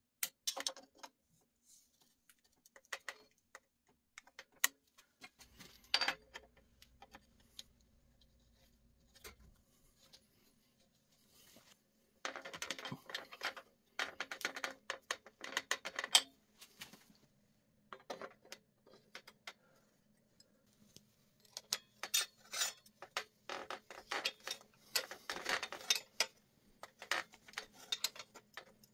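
Hand tools working on a bicycle's bottom bracket and crankset: metal clinks, taps and scrapes as a hook spanner sets the bottom-bracket lockring and a cotterless crank arm is fitted to the spindle and its bolt tightened with a wrench. Scattered single clicks, with two longer runs of quick clicking, one in the middle and one near the end.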